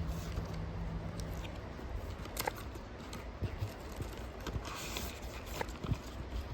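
Packaging and products being handled: scattered light clicks and taps, with a short crinkling rustle about five seconds in. A low steady hum is heard under it and stops about a second and a half in.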